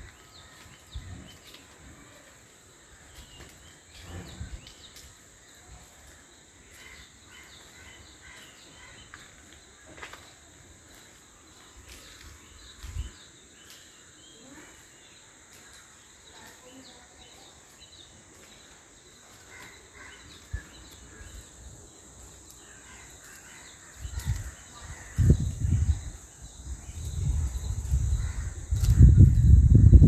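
Forest ambience: scattered bird calls over a steady high insect drone. About six seconds before the end, a loud low rumble comes in, in uneven gusts, and grows louder.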